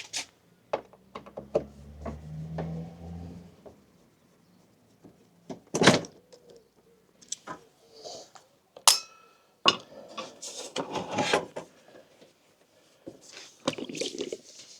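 Workshop handling noises while the screws holding a diesel heater's fuel tank are undone and the tank is worked loose: scattered clicks and knocks, a low hum for about two seconds near the start, one loud knock around the middle, a short ringing metallic clink, and rustling later on.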